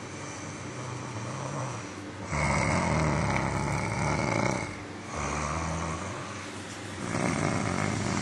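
A person snoring loudly, the snores getting much louder about two seconds in and coming in long rasping breaths a second or two apart.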